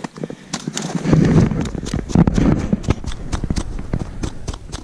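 Crisp crunching and a rapid, irregular run of sharp clicks on crusty spring snow as a freshly caught grayling is handled and put down on it, with two louder low rustling swells about one and two seconds in.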